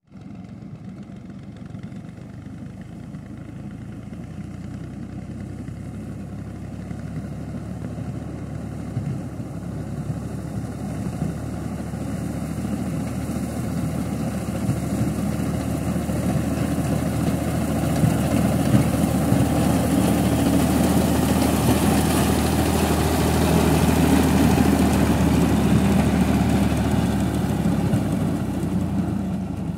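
Tractor diesel engine running steadily as it drives a front-mounted reaper binder through standing wheat, growing louder as the tractor approaches, loudest about two-thirds in, then easing off slightly near the end.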